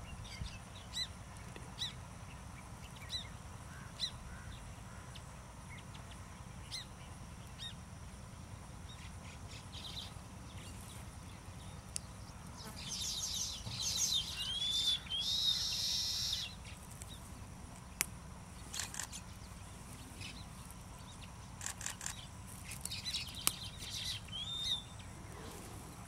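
Baya weavers calling: scattered short high chirps, with a louder buzzy chattering song about halfway through that lasts about four seconds and carries rising whistled notes, and another run of chatter near the end.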